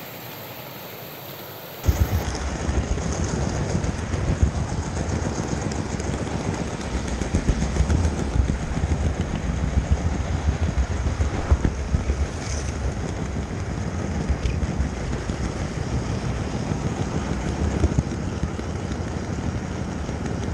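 OO gauge model train running fast on its track, heard as a dense rattling rumble of wheels on rail picked up by a camera riding on the front of the train; it starts suddenly about two seconds in, after a quieter steady running sound.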